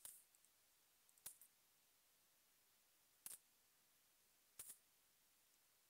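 Faint computer mouse clicks: four short clicks a second or two apart, some as quick pairs.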